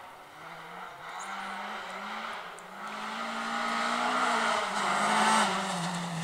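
Volvo rally car's engine revving hard as it approaches, growing steadily louder, with the revs rising and falling through the gears and one sharp drop in revs near the end.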